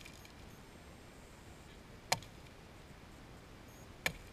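Two sharp knocks about two seconds apart: a driftwood stick striking the head of a freshly caught chum salmon to dispatch it.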